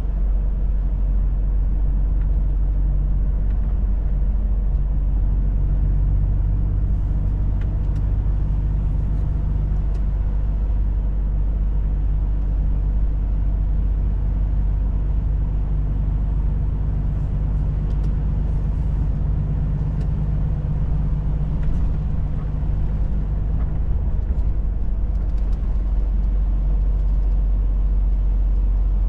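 Volvo FH4 500 hp truck's 13-litre six-cylinder diesel engine running steadily under way, a low even drone heard from inside the cab.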